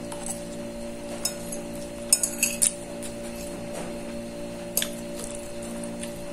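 Metal fork clinking against a ceramic plate while eating noodles: a single clink, then a quick cluster of three or four sharp clinks about two seconds in, and another near five seconds. A steady low hum runs underneath.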